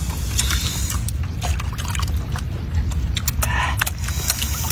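Water sloshing and trickling around people standing chest-deep in a lake, over a low steady rumble, with scattered small clicks and taps throughout.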